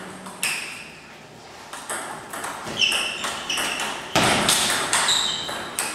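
Table tennis rally in a doubles match: the ball clicks off rackets and the table in a quick, uneven series of sharp pings. About four seconds in, a louder noisy burst comes in and lasts about a second and a half.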